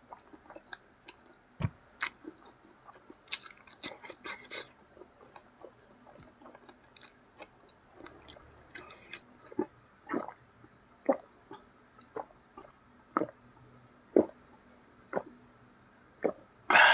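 Close-miked eating sounds of a person chewing a mouthful of catfish and rice eaten by hand: wet mouth clicks and smacks, irregular at first, then about one a second. A louder sound about a second long comes near the end, as a glass is raised to drink.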